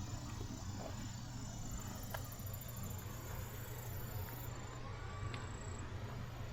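Outdoor garden ambience: a steady background with faint insect chirring high up, a low rumble, and a few light ticks.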